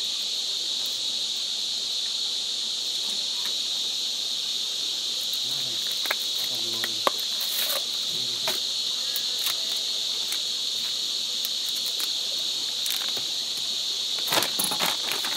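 A steady night chorus of crickets and other insects, a continuous high-pitched trilling, with a few light clicks and knocks over it.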